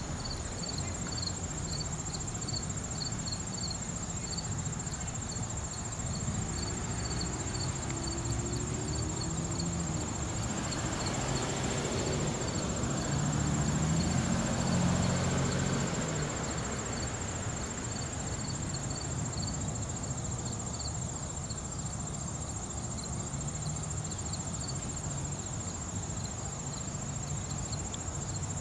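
Crickets calling: one unbroken high-pitched trill and, below it, short chirps repeated about two times a second. Underneath is a low background rumble that swells and fades around the middle.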